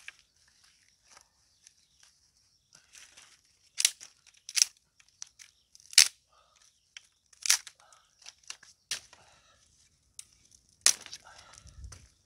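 Dry sticks being snapped for firewood: about six sharp cracks, irregularly spaced, with light rustling and crackling of twigs between.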